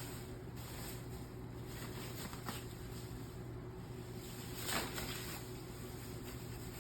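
Faint rustling and handling of guitar packaging as the guitar is worked out of its box, with a louder brief rustle about five seconds in, over a steady low hum.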